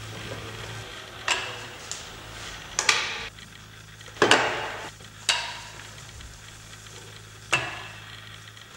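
Tools and pipe being handled and set down on a workbench: five sharp knocks, each with a short ringing tail, the loudest about four seconds in, over a steady low hum.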